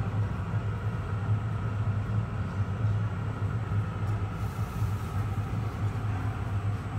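A steady low mechanical hum that keeps up without a break, with a fainter higher tone held over it.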